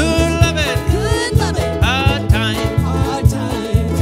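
Banjo and ukuleles strummed and picked in a steady bluegrass rhythm, with singing over them.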